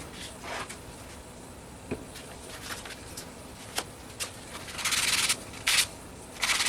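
Small wooden parts being handled: a few light knocks, then three short rubbing strokes near the end.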